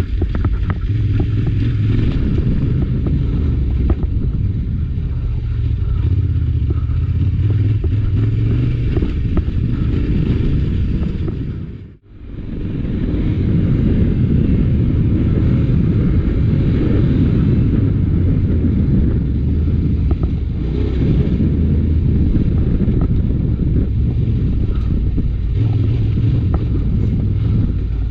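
Adventure motorcycle engine running as the bike rides off-road, a steady low rumble. About halfway through, the sound briefly fades out and back in.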